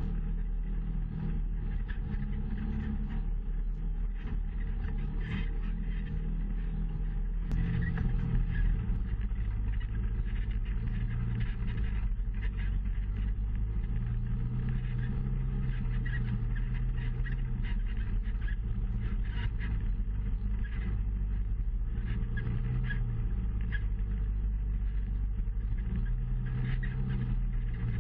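Engine of an off-road side-by-side running at low speed along a rough dirt trail, its pitch stepping up about a quarter of the way in and then wavering with the throttle, with small knocks and rattles over the ground.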